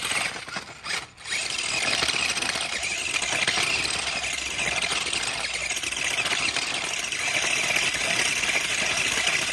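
Radio-controlled monster truck's motor running flat out with a high whine as it spins its wheels in mud doing donuts; it kicks in, drops out briefly twice about a second in, then holds steady.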